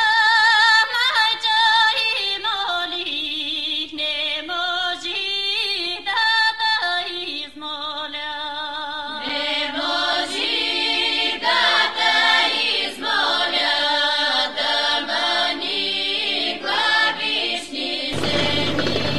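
Music led by sung voices with wavering pitch; from about nine seconds in, several voices layer into a fuller, choir-like sound. A dense burst of noise comes in near the end.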